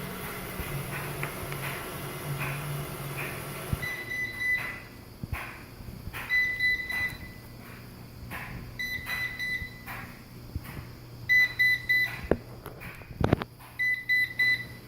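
Ecovacs Deebot N79S robot vacuum running with a low motor hum that stops about four seconds in. It then gives a repeated high-pitched error beep, about every two and a half seconds, with scattered clicks and knocks between the beeps. The beeping is its alert that it is stuck on a foam floor mat, where its anti-drop sensors have halted it.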